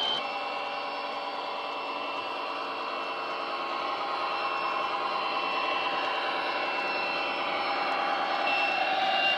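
Digital sound decoder in a model Class 57 diesel locomotive playing a diesel engine sound through a small speaker: a steady engine drone with a thin high whine on top. It grows louder toward the end as the locomotive approaches.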